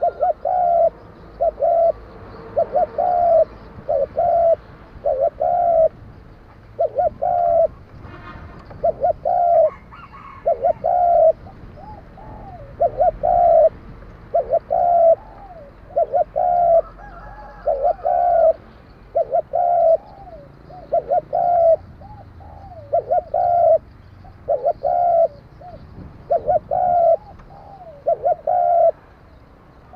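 Spotted dove (cu gáy) cooing over and over in short phrases of a few notes each, with hardly a pause. Its voice is of the kind Vietnamese dove keepers class as 'đồng kim'.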